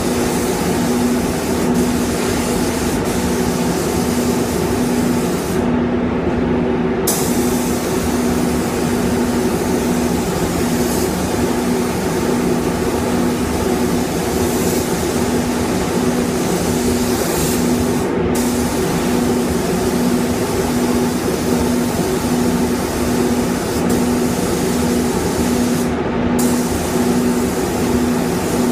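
Paint spray booth running with a steady hum, under the hiss of a compressed-air spray gun. The hiss cuts out briefly three times, once for over a second, as the trigger is released.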